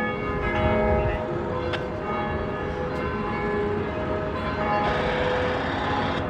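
Church bells ringing for noon, with a new stroke about every second and the long tones of several bells overlapping, over a steady low rumble.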